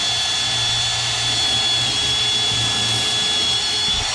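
Battery-powered drill running continuously at full speed with a steady high whine, drilling into the wall to mount a pipe clamp. It stops suddenly at the end.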